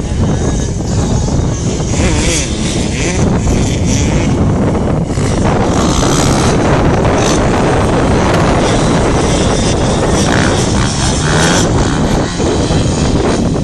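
Motocross bike engines running, largely buried under wind buffeting the microphone.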